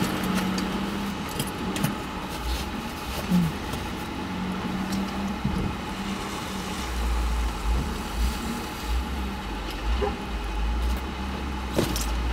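Diesel engines of a Cat 966G wheel loader and a Mack dump truck running with a steady hum, a deeper rumble joining about seven seconds in, as the loader lifts its bucket of snow over the truck. Scattered short clanks and knocks, with snow tipping into the truck bed near the end.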